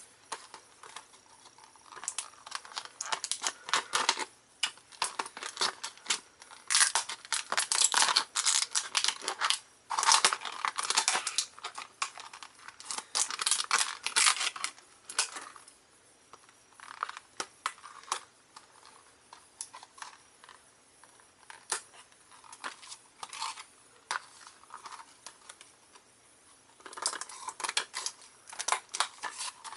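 A fidget spinner's retail packaging being torn and pulled open by hand, crinkling and tearing in irregular bursts with short pauses.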